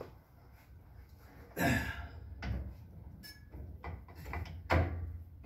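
A few sharp metal knocks and clunks, two louder ones about a second and a half in and near the end, as a new spring shackle is worked into the eye of a Model A Ford pickup's leaf spring under spring-spreader tension.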